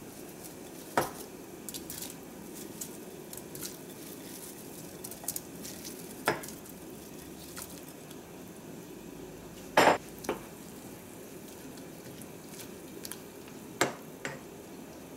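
Saucepan of water boiling on a gas stove, a steady bubbling hiss, with a handful of sharp knocks of the glass bowl and spatula against the pot as broccoli florets are tipped in and stirred; the loudest is a double knock about ten seconds in.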